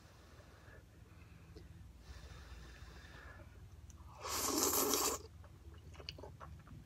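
One loud slurp of spicy ramen noodles, lasting about a second a little past the middle, after some faint breathing.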